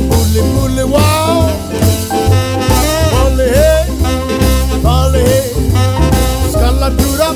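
Background music: a song with a steady bass line and drum beat, and a melody line that slides up and down in pitch.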